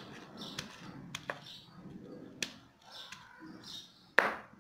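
A stone pounding fresh turkey berries (sundakkai) inside a plastic bag to crack them open. Several sharp, irregular taps with plastic crinkling between them; the loudest strike comes near the end.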